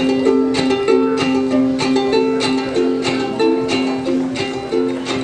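Ukulele strumming chords in a steady rhythm, about three strums a second, playing the instrumental introduction to a song.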